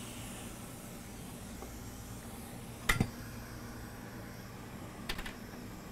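Steady low hum and hiss of bench equipment, with a sharp double clack about three seconds in and a brief cluster of lighter clicks near the end: metal tweezers and tools being handled while a small capacitor is lifted off a phone logic board.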